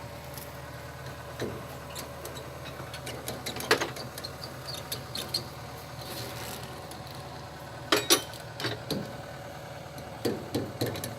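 A steady low engine hum with scattered sharp clicks and knocks, the loudest near four seconds in, a pair about eight seconds in, and a quick cluster near the end.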